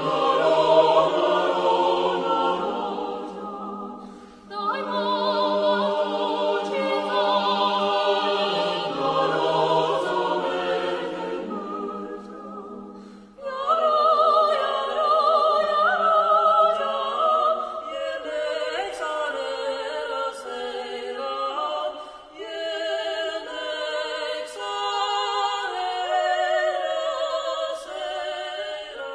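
Chamber choir singing an Armenian folk song a cappella, in phrases with short breaths between them. Lower-pitched voices carry the first half, and higher-pitched voices take over about halfway through.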